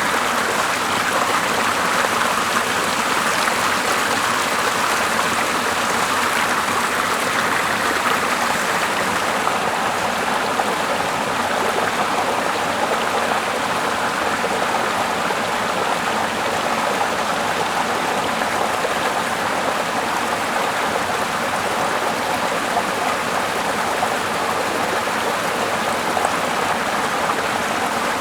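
Steady running water: an even, unbroken rushing noise.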